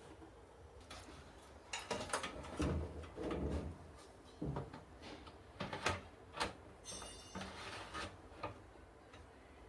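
Desktop PC parts and cables being handled during assembly: scattered plastic and metal clicks, knocks and rustling, busiest in the first half, with a short rattle later on.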